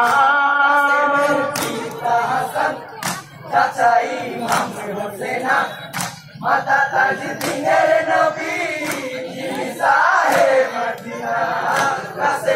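Men's chorus chanting and calling out together in a Bengali jari lament for Karbala, with sharp beats marking a rhythm for the dancers' steps.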